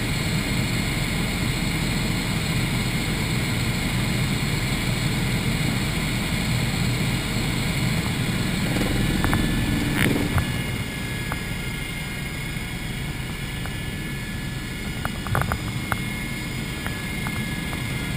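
Cabin noise inside a Eurocopter EC120 Colibri helicopter in flight: the steady noise of the turboshaft engine and rotors, with a fast low beat from the main rotor blades. It drops a little in loudness about halfway through, and a few brief clicks come near the middle and again near the end.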